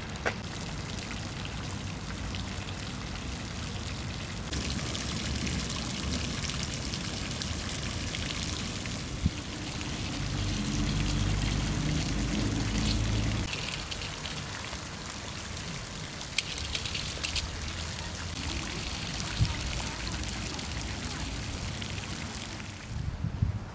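Outdoor garden ambience: a steady hiss like running or splashing water, with a low rumble swelling for a few seconds in the middle and a few sharp clicks.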